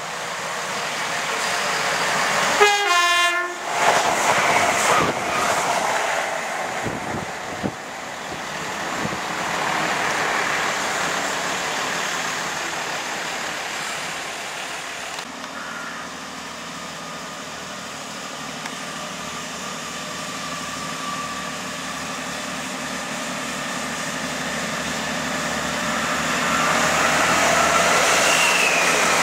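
A train horn blasts briefly about three seconds in, then trains pass at speed with steady wheel and engine noise. Later a First Great Western diesel multiple unit runs through, its engine note growing louder as it comes past.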